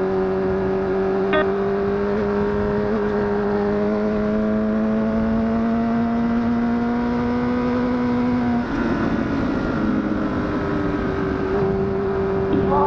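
Honda CBR1000RR (SC57) inline-four engine running under light, steady throttle, its pitch slowly rising for about eight seconds and then dropping off abruptly, with wind and road noise under it.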